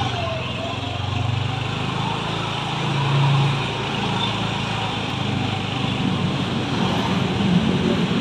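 Small motorbike engine running steadily while riding, with road noise; the engine swells briefly about three seconds in.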